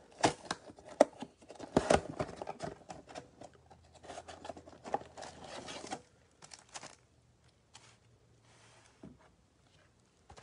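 Cardboard trading-card box being opened and its foil-wrapped card packs pulled out and riffled: tearing, rustling and crinkling with many sharp clicks. After about six seconds it drops to a few soft taps as the stack of packs is set down.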